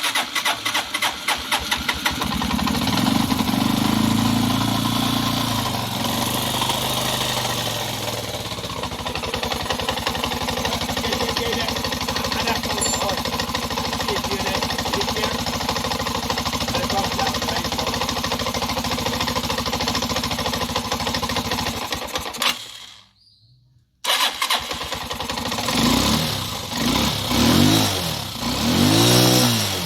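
Freshly rebuilt CG150 motorcycle's single-cylinder four-stroke engine running after its rebuild. It revs up briefly a couple of seconds in, then runs steadily. Its sound cuts out abruptly for about a second, and near the end the throttle is blipped in three or four quick revs that rise and fall.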